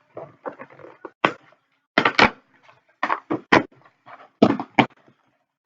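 Cardboard boxes being handled and opened: a series of about eight sharp knocks and thuds, with rustling of cardboard in between.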